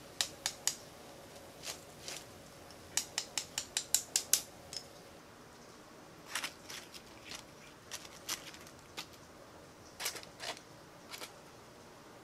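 Freshly fried oyster mushroom tempura crackling: scattered sharp, crisp clicks, with a quick run of them about three to four seconds in and a sparser handful after.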